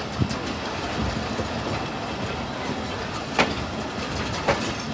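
Coaches of a passenger train rolling along the track with a steady rumble, and three sharp clacks of wheels striking rail joints.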